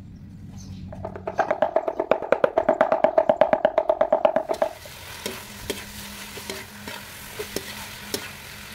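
Meat cleaver chopping rapidly on a wooden chopping board, mincing meat, each stroke a ringing knock. About halfway through the chopping stops and minced meat sizzles in a wok, with occasional clicks of a spatula against the metal.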